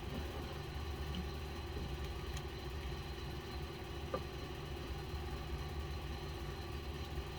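Steady hum of a large air conditioner running, with one faint click about four seconds in.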